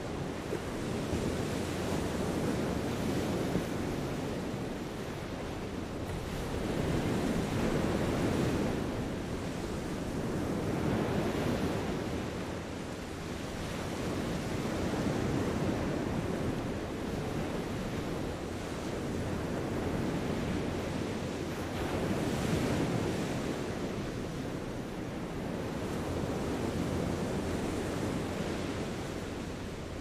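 Small waves washing onto a sandy beach, the surf swelling and easing every three to four seconds.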